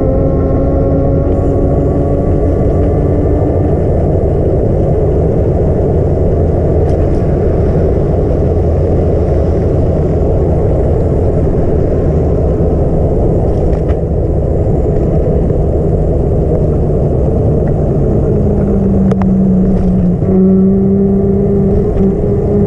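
Engine of the camera-carrying vehicle running on the move, with heavy wind and road noise on the microphone. A stronger engine tone comes in near the end and steps up in pitch.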